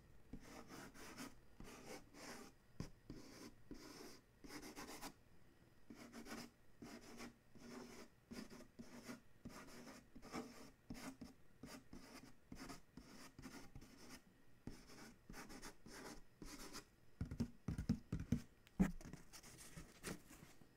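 Fingertip scratching and tracing over the printed surface of a cardboard box: a steady run of short, dry strokes, several a second. Near the end come a few louder, deeper thumps as the box is handled and moved.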